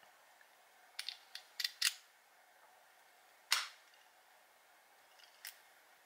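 Metal key being pushed into a clear acrylic practice padlock and turned: a quick run of small clicks as the key slides in over the pins, then one louder, sharper click about three and a half seconds in as the lock opens, and a faint click near the end.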